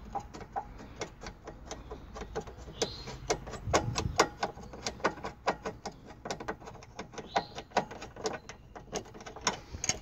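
Hand ratchet clicking in quick, uneven runs of several clicks a second as it backs out the 13 mm upper bolt of a seat belt assembly.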